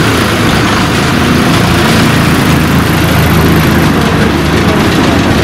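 Uttar Pradesh roadways bus engine idling steadily close by, a low even rumble.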